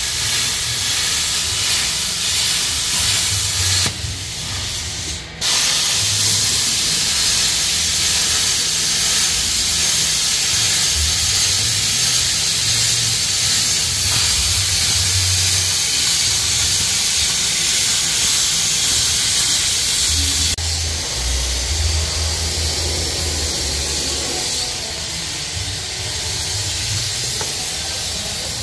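Loud, steady hiss of a power cutter slicing through steel at the rear frame of a Jeep Wrangler JL, cutting off the factory suspension mounts to fit a long-arm kit. It lets up briefly about four seconds in, then carries on.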